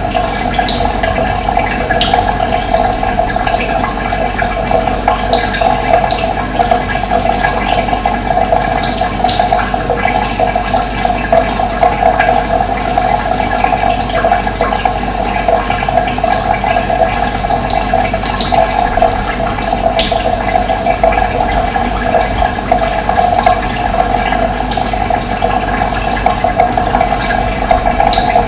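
Steady rush of running water, even and unbroken, with a few brief high bird chirps now and then.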